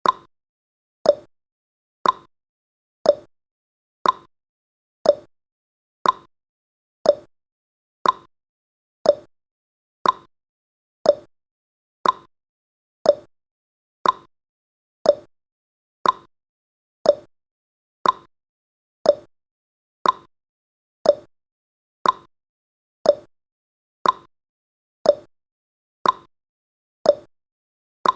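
Clock-tick sound effect of a countdown timer: a sharp tick once every second, alternating slightly higher and lower in pitch like a tick-tock.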